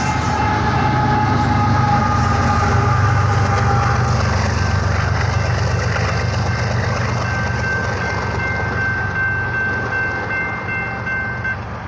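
BNSF freight diesel locomotives rumbling past on the rails while a locomotive horn holds a steady chord, cutting off sharply near the end.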